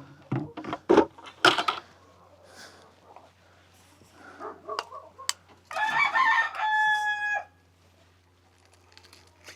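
A few sharp knocks and clatter in the first two seconds, the loudest about a second in, then a rooster crowing once, about two seconds long, around six seconds in.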